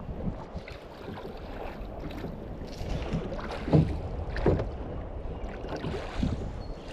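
Water splashing and sloshing around a rowed boat, with a few low knocks, the loudest about four seconds in.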